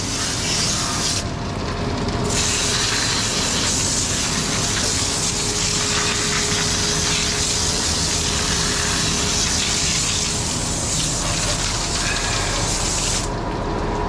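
Water hose spraying hard, washing leftover concrete and rocks off the back of a concrete mixer truck, over the steady running of the truck's diesel engine. The spray breaks off briefly about a second in and stops shortly before the end.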